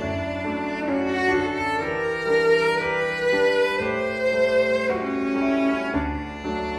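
Slow instrumental background music, held notes that change about once a second.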